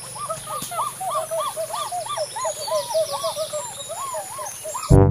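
Birds calling in a rapid series of short rising-and-falling notes, about three or four a second, over a steady high hiss. Brass music starts at the very end.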